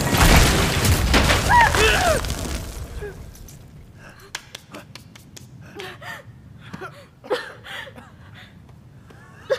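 Film sound effects: a dense rushing din of a rat swarm with short squeals, loud for about three seconds and then fading. After that come scattered small clicks and knocks with short breaths.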